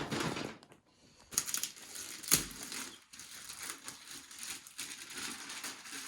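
Packaging rustling and crinkling as a hoodie is unwrapped, in irregular bursts with small clicks and one sharper crackle a little over two seconds in.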